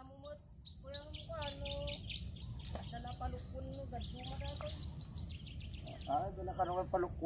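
Insects droning steadily in one high, even tone, with faint distant voices calling now and then.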